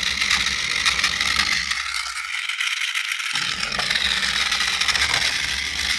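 Toy RC tank's small motor and plastic gears running, with a steady rattle and scrape and a high whine.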